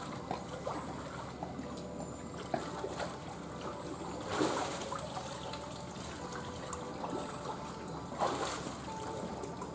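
Water trickling and sloshing as a Malayan tapir wallows in a shallow pool, with louder splashes about four and a half seconds in and again near the end as it rises to its feet.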